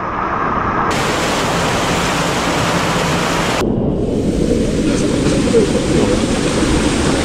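Loud, steady rushing of a mountain stream's waterfall and cascades. Its tone changes abruptly about a second in and again at about three and a half seconds.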